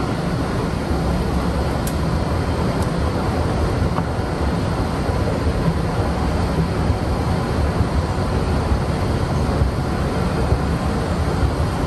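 Steady low rumbling noise, dense and even, with no distinct events.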